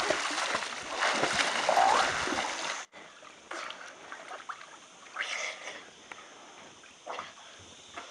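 Pool water splashing hard as two swimmers thrash and throw water at each other, cutting off abruptly about three seconds in. After that, quieter water lapping with a few small splashes.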